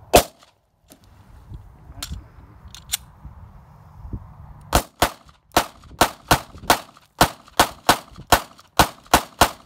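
A 9mm pistol with a Smith & Wesson SW9VE slide fires one loud shot, then after a pause with two faint clicks fires a rapid string of about fifteen shots, roughly three a second. The shooter puts the pause after the first round down to limp-wristing it. The string shows the slide cycling and the trigger resetting shot after shot.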